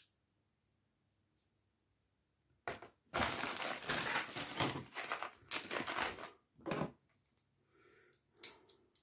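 Plastic mailer packaging crinkling and rustling as it is grabbed and moved by hand, in a run of bursts that starts about three seconds in, with a few shorter rustles near the end.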